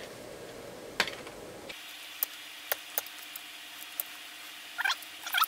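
A knife scoring around the cloth-covered insulation of a transformer lead to strip it: a few sharp separate clicks and ticks, with a short squeaky scraping near the end.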